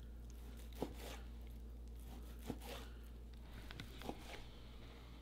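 Chef's knife slicing through cooked antelope backstrap and knocking on the cutting board, about five short, sharp knocks at uneven intervals.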